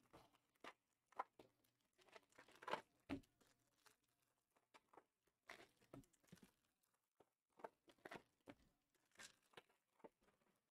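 Faint, irregular rustles and soft taps of trading cards and their packaging being handled, loudest about three seconds in.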